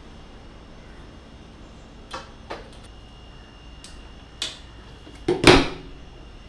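Plastic clothes pegs clicking and clacking as laundry is pegged onto a drying rack: a few sharp clicks, then a louder double knock with a low thump near the end.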